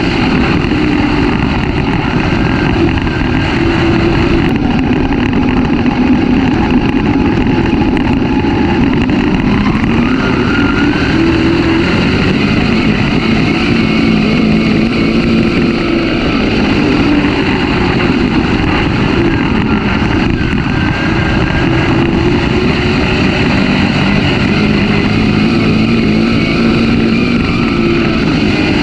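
Dirt-track race car engine at racing speed, heard loud from inside the car. Its pitch rises and falls every several seconds as the revs climb and drop around the track.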